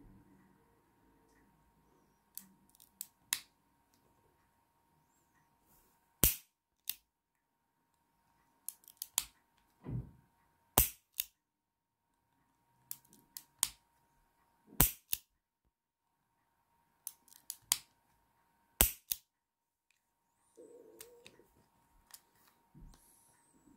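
Arminius HW3 .32 S&W revolver being dry-fired: a few small clicks of the action as the hammer comes back and the cylinder turns, then a sharp snap as the hammer falls. The cycle repeats four times, about every four seconds.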